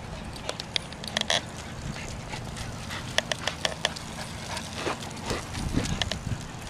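Great Dane trotting and panting beside a moving bicycle, with a run of irregular sharp clicks in the first few seconds over a low rumble of wind and movement.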